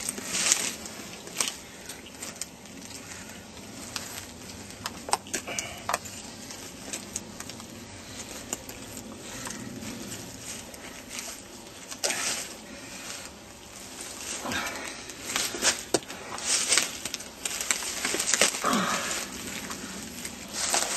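Scattered clicks, scrapes and rustles of a knife and hands working on a sambar stag carcass, separating the head at the neck joint.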